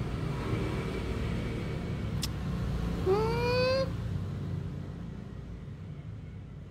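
A puppy gives one short rising whine about three seconds in, over a low rumble that fades toward the end.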